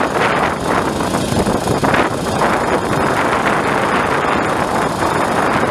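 Small engine-driven water pump running steadily, with wind on the microphone.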